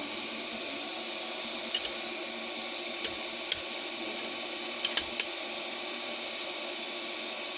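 Steady background hum with a handful of light, sharp clicks: a pair near the two-second mark, two more around three seconds in, and a quick cluster of three about five seconds in.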